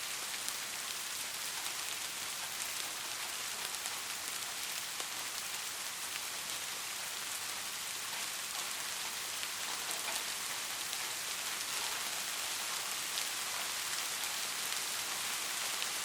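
Steady soft rain, with many small scattered drop ticks over an even hiss.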